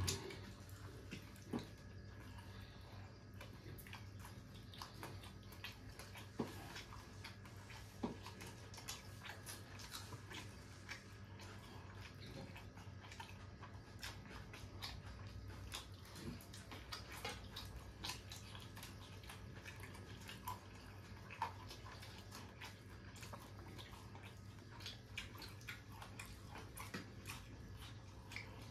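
Quiet eating sounds: people eating with their hands from steel plates, with scattered light clicks and chewing over a steady low hum.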